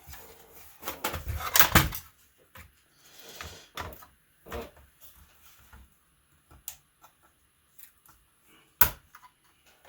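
Parts of a laptop being handled during disassembly: a cluster of plastic clacks and knocks about a second in, scattered small clicks, and one sharp knock near the end.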